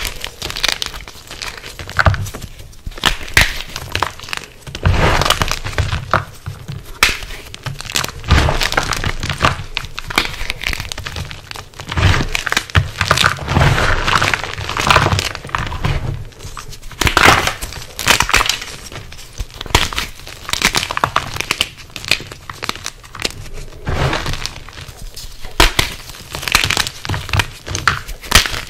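WOD Nation gym chalk (magnesium carbonate) blocks crushed by hand: dense, irregular crunching and crackling as pieces snap and crumble to powder, in clusters of sharp crunches a second or two long.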